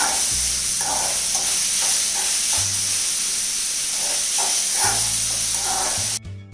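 Chopped carrots and onions sizzling in vegetable oil in an aluminium kadai, a steel spoon scraping and stirring them in repeated strokes, over soft background music. The sizzling cuts off suddenly near the end, leaving the music.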